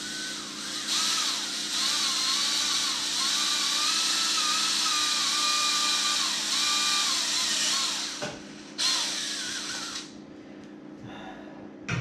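Cordless drill boring a hole through PVC pipe, its motor whine wavering in pitch under load. It runs for about seven seconds, stops, then runs again for about a second.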